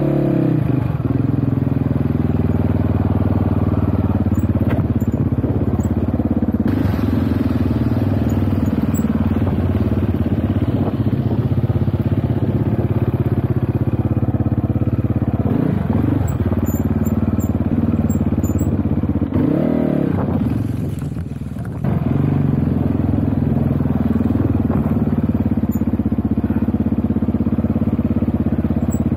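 GPX Moto FSE300R dirt bike engine running steadily under the rider, its pitch swinging up and down with the throttle a few times. About twenty seconds in it drops off for a couple of seconds, then comes back on sharply.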